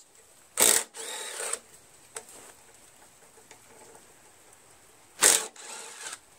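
Three brief, loud bursts of a tool spinning off the two 3/8-inch carburetor mounting bolts on a Briggs & Stratton Quantum mower engine.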